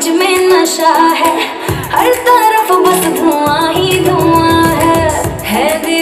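Recorded dance song: a woman singing a melody over instrumental backing, with a deep bass beat coming in about two seconds in and dropping away near the end.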